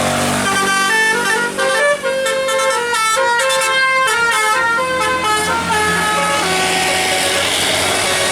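Bus 'telolet basuri' musical air horn playing a quick tune of changing notes for about six seconds, then stopping, leaving steady vehicle noise.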